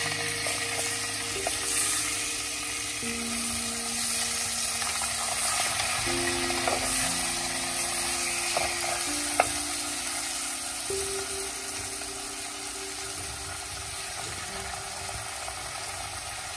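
Marinated red mullet pieces sizzling as they fry in oil in a clay pot, stirred and turned with a metal spoon, with a few light clinks of spoon on pot and one sharper clink about nine seconds in. Soft background music with long held notes runs underneath.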